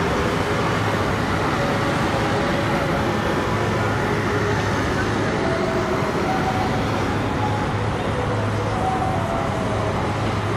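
Steady street ambience: traffic running past with a mix of distant voices.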